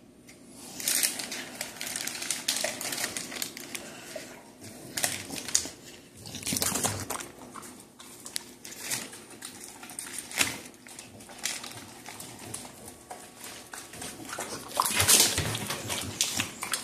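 A dog eating chopped meat off a kitchen floor: irregular chewing and licking clicks, louder for a moment near the end.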